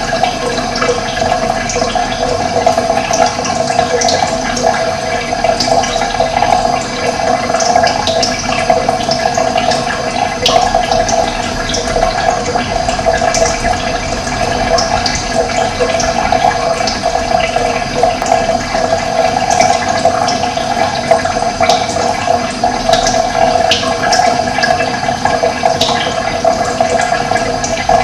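Steady rush of running water, with short high bird chirps scattered through it.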